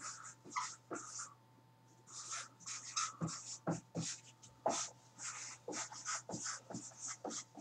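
Writing by hand: a run of short, quick scratchy strokes with brief pauses, and a gap of about a second early on before the strokes resume.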